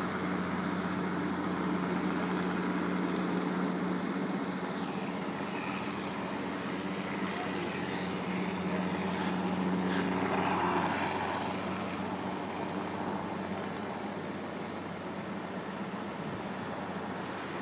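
Steady engine drone with a constant low hum, easing off slightly in the second half.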